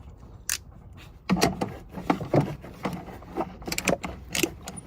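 OX Tools ratchet pipe cutter clicking in a run of irregular strokes as it cuts through old copper pipe.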